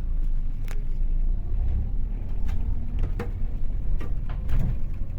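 Diesel engine of a Scania K400 coach running with a steady low rumble, with half a dozen sharp clicks or rattles scattered through it.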